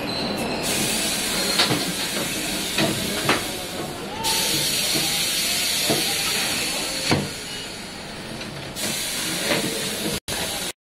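Compressed air hissing at a car tyre's valve stem from an air hose chuck, the hiss changing in strength and pitch several times as the chuck is worked at the valve, with a few sharp clicks of the metal fittings.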